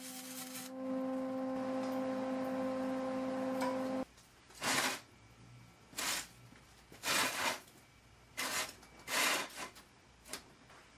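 A steady electric machine hum in the workshop that cuts off abruptly about four seconds in. It is followed by a series of short knocks and scrapes of steel parts being handled on the bandsaw stand.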